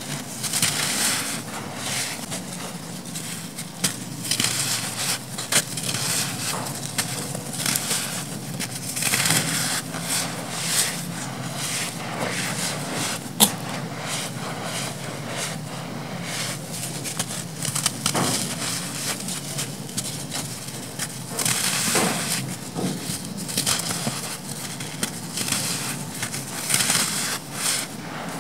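Clumps of dry black sand crushed and crumbled by hand into a loose pile: an irregular run of gritty crunching and crackling, with one sharp crack about halfway through.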